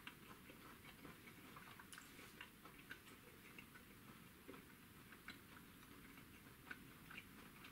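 Near silence: quiet room tone with faint, scattered small clicks at irregular intervals.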